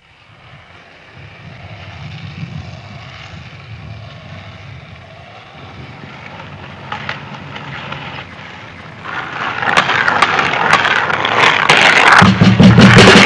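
Skateboard wheels rolling on asphalt: a steady rumble that fades in and swells louder and closer, with scattered clicks, and is loudest in the last second as the board passes close.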